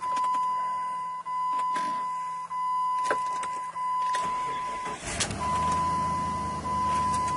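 2002 Jeep Grand Cherokee engine being started: a few clicks over a low hum, then about four seconds in the starter cranks briefly and the engine catches and settles into a steady idle. It keeps running with its SKIM immobiliser module removed, the ECM reprogrammed to ignore it. A steady high-pitched electronic tone sounds throughout, dropping out for a moment during cranking.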